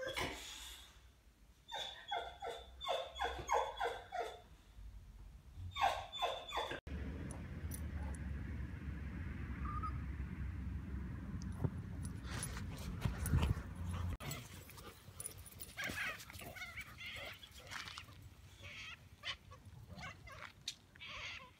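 Boxer dog whining in several runs of high-pitched, wavering cries. After that comes a steady low rumble of wind on the microphone lasting several seconds, then scattered faint clicks and scuffs.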